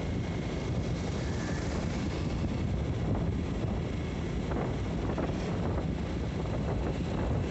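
Steady wind rushing over the microphone of a motorcycle riding along an open road, with the bike's engine and tyre noise mixed in underneath.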